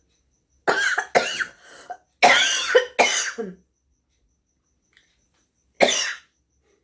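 A woman forcefully clearing her nose and throat in loud, cough-like blasts: a run of several in the first three seconds or so, then one more near the end.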